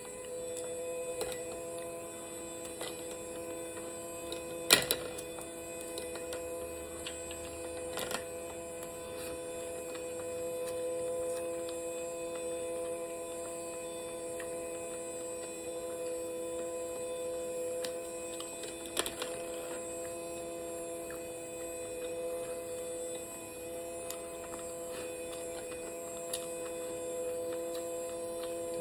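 A steady electrical hum made of several fixed tones, with a few sharp clicks now and then, the loudest about five seconds in.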